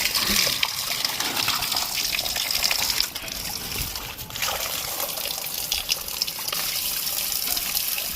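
Water spraying onto the fins of an air conditioner condenser coil, rinsing off coil cleaner: a steady hissing spray that dips briefly about three seconds in.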